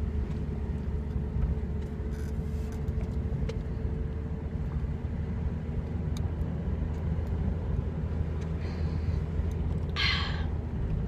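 Steady low rumble of a car, heard from inside the cabin, with a short hiss-like sound near the end.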